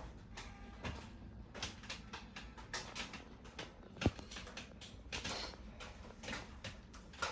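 Faint scattered small clicks and taps over quiet room tone, with one sharper click about four seconds in.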